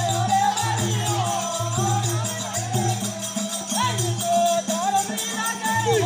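Rajasthani Bhil Gavri folk music played live: a wavering sung melody over a low drum beat recurring about once a second, with rattling percussion.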